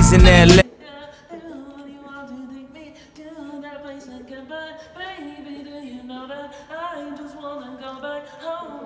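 A hip-hop track cuts off abruptly about half a second in. After that a single voice sings a wavering, unaccompanied melody, sounding thin and muffled.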